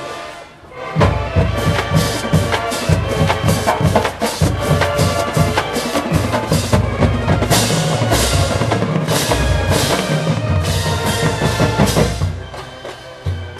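Marching band in a loud, drum-led passage: the drumline's bass drums and snares play fast, dense rhythms. It comes in about a second in after a brief lull and falls away about twelve seconds in.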